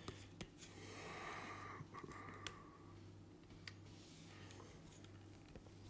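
Near silence: a steady low room hum, with faint handling noise and a few small clicks as a detached guitar neck is turned over in the hands.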